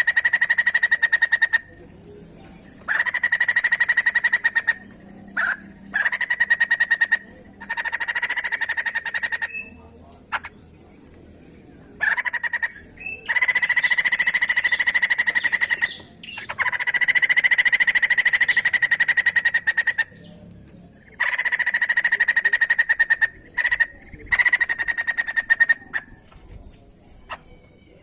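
White-crested laughingthrush calling in loud bouts of rapid, rattling notes, each bout lasting one to four seconds, with short pauses between them.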